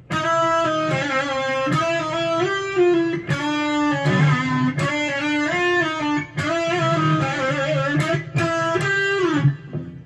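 Ibanez electric guitar played as a melodic line of sustained single notes, with short breaks about three and six seconds in.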